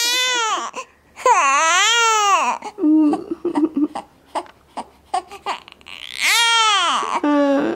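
Young baby crying with hunger in long wails that rise and fall in pitch. One wail trails off about half a second in, a long one follows after a short pause, and another comes near the end, with short fussy sounds in between.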